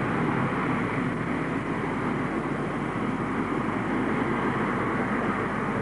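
RAF Harrier GR7's Rolls-Royce Pegasus vectored-thrust turbofan running at hover power in jet-borne flight, a steady, unbroken jet noise.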